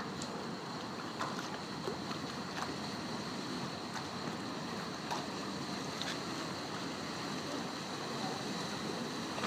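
Small single-deck lake tour boat with steady water and motor noise, a faint steady high tone, and a few light clicks.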